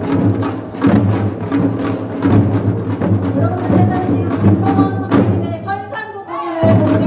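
Korean farmers' music (nongak) played by a folk percussion band: drums beating a steady rhythm over a low sustained drone, with a wavering melodic line joining about halfway through.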